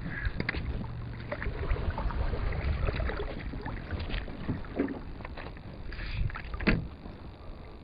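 Knocks and bumps on a plastic kayak hull and small water splashes as a hooked sunfish is reeled in alongside, over a steady low wind rumble on the microphone.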